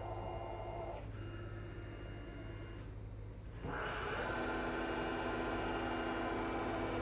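Tormach slant-bed CNC lathe running its automatic cycle on 304 stainless bar: a steady machine hum under the hiss of coolant spray. The noise thins out about a second in, then comes back sharply louder, with a steady whine, a little past halfway.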